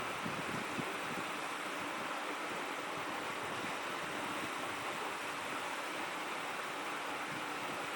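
A shallow stream babbling, water running steadily with an even rushing murmur.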